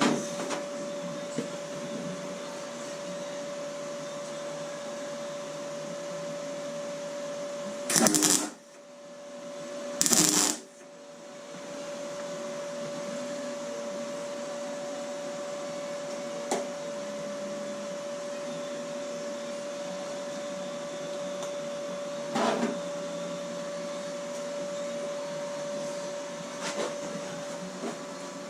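Welder laying two short tack welds on thin steel door skin, each burst about half a second long and about two seconds apart, over a steady hum. A few light knocks follow later.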